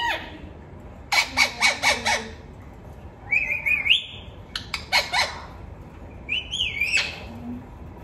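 Rose-ringed parakeet calling: a quick run of about five shrill screeches a second in, then rising chirps and a few sharp squawks, and a wavering whistled call near the end.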